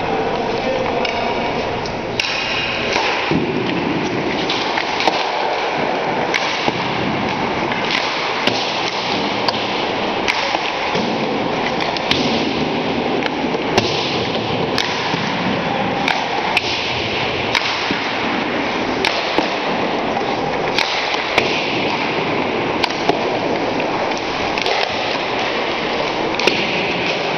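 Ice hockey practice shots: pucks cracking off sticks and knocking off the goalie's pads, the posts and the boards, as many sharp knocks at irregular intervals over a steady wash of rink noise.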